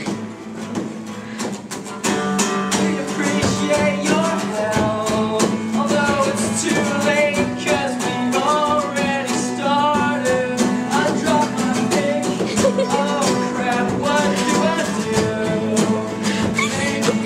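Live music: acoustic guitar with a man singing an improvised song, getting louder about two seconds in.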